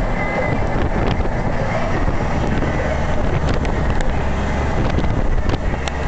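Steady rumble of a moving car, road and wind noise, with a few faint ticks.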